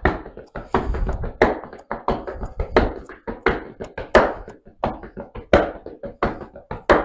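Leather boots stamping and stepping on a tiled floor in a Chuvash folk dance step: a steady run of sharp footfalls, about three a second.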